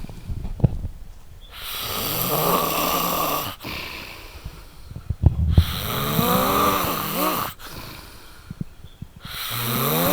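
A man snoring: three long snores about four seconds apart, with a few small clicks in the quiet gaps between them.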